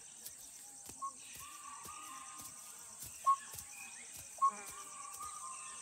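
Dholes (Asian wild dogs) giving three short whistles spread over several seconds. This is the pack's contact call, which lets the hunters know where each member is when they cannot see each other. Under it is a faint steady drone of insects.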